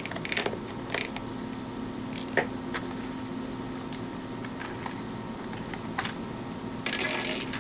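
Scattered light clicks and taps of small plastic parts being handled as the plastic body of a toy RC stunt car is unscrewed and lifted off, with a brief scraping rustle near the end.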